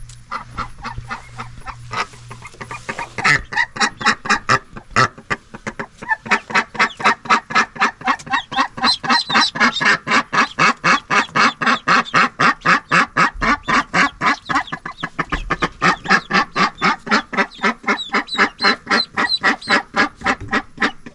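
A duck calling in a long run of rapid, repeated notes, about five a second, with high peeps of ducklings over it at times.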